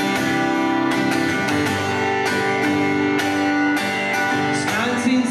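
Live folk band playing the instrumental opening of a song: steadily strummed acoustic guitar over electric bass and drums, with another plucked string instrument, heard through the PA.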